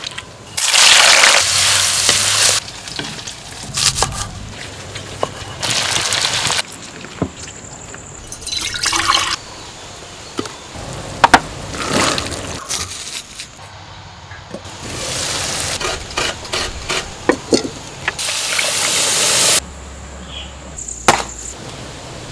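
Cooking sounds with clay pots: wet, liquid sounds of food being mixed and cooked, four loud bursts of hissing that each last a second or two and stop abruptly, and scattered knocks and clicks of utensils.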